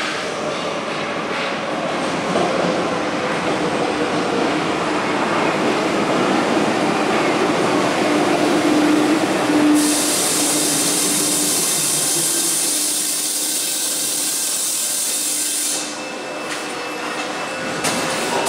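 Paris Métro MF 77 steel-wheeled train running into a station and slowing to a stop, with a steady rolling rumble and a faint whine. A loud high air hiss starts suddenly about halfway through and cuts off about six seconds later.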